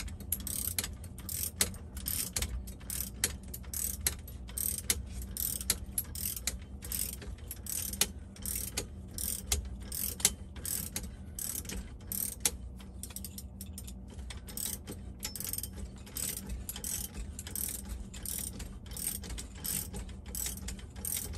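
Ratcheting torque wrench clicking irregularly, a few clicks a second, as it is swung back and forth to tighten a gear puller's forcing screw, drawing a diesel engine's vibration dampener off the crankshaft. A steady low hum runs underneath.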